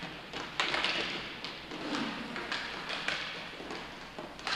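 Knocks and clacks of inline hockey play, sticks and puck striking: a sharp knock about half a second in is the loudest, followed by several lighter ones over steady background rink noise.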